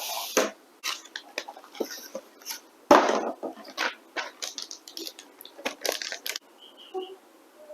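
Motherboard packaging being handled during unboxing: irregular rustles and light clicks of cardboard and plastic, with one louder knock about three seconds in.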